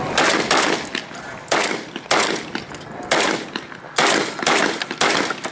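A string of about ten pistol shots fired at a quick, uneven pace, some in fast pairs, each followed by a short echo.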